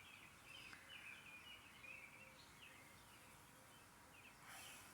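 Faint bird chirping: short high notes, several sliding slightly downward, repeating irregularly over a very quiet background.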